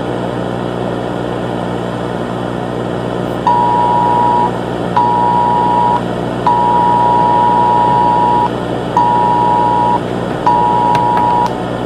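Emergency Alert System two-tone attention signal: two steady tones sounding together, beeping five times from about three and a half seconds in, the third beep about twice as long as the rest, over a steady hiss with a low hum.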